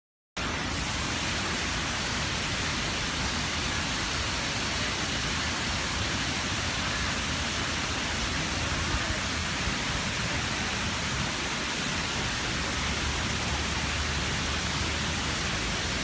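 Wachirathan Waterfall's falling water, a steady, even rush that cuts in suddenly about a third of a second in and holds unchanged.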